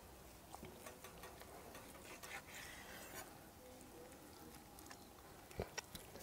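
Very faint knife cutting through a smoked, glazed pork neck on a bamboo cutting board: scattered light ticks, with two small clicks near the end.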